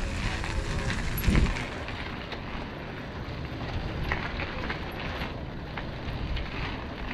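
Wind buffeting the microphone, with scattered light ticks and one thump about a second in.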